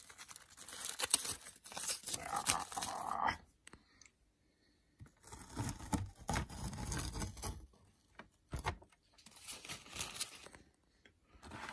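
Masking tape being peeled off a painted terrain board and crumpled, in several bursts of peeling and crinkling with a short pause about four seconds in.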